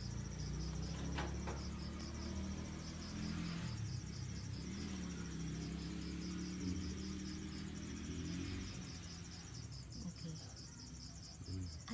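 Crickets chirping in a fast, even trill, over a louder low background hum.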